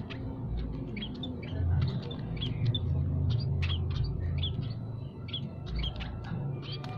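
Small flock of scaly-breasted and Javan munias giving many short, high chirps, several a second, over a low rumble that rises and falls.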